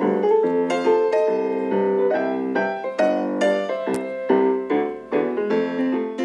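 Background music: solo piano playing a lively ragtime-style tune, one note and chord after another, with a brief click about four seconds in.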